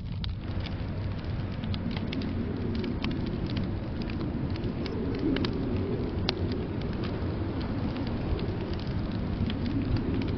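Wood fire crackling with scattered sharp pops over a steady low rumble of blizzard wind.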